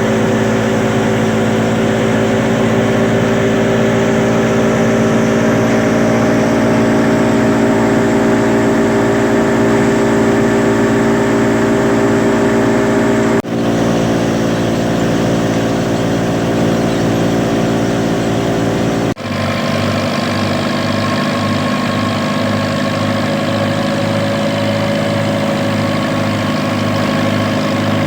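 Tractor-driven wheat thresher running steadily, engine and threshing drum together, with an even mechanical drone. It breaks off for an instant twice, about 13 and 19 seconds in, and after the second break a slow, even pulsing sits under the drone.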